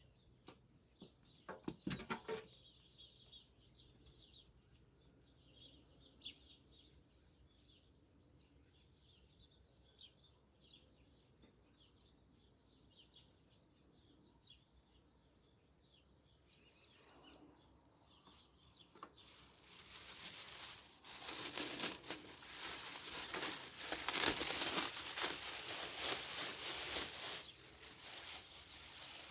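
Faint birdsong, then a loud crinkling rustle that lasts about nine seconds in the second half.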